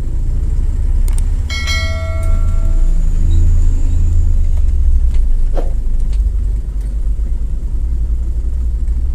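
Steady low rumble of a car driving over broken concrete, heard from inside the cabin. About a second and a half in, a brief ringing metallic tone sounds and fades out.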